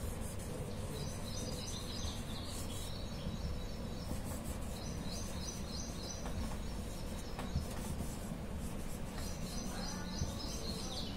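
Steady low background hum with a small bird chirping in three short runs of quick repeated high notes, and faint strokes of a marker on a whiteboard.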